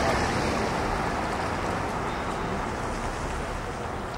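Road traffic noise: a motor vehicle going by on the street, loudest at the start and fading away over the next couple of seconds, over a steady low rumble.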